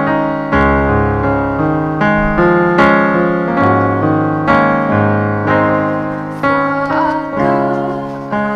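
Electronic keyboard on a piano voice playing a slow hymn-like run of chords, a new chord struck every half second or so and each dying away. A singing voice comes in faintly near the end.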